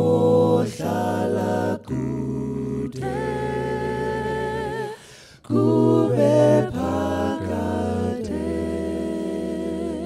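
Five-man a cappella group singing in close harmony, in long held chords with two short breaks between phrases; the last chord is held for the final couple of seconds.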